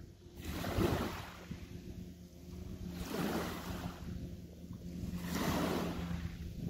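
Small waves washing onto the shore: three surges of rushing noise a couple of seconds apart.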